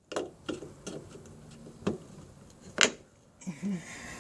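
Small screwdriver clicking and tapping against the plastic trim tabs of a window switch being pried out. There are a handful of sharp ticks spread over the seconds, the loudest nearly three seconds in, then a soft rustle near the end.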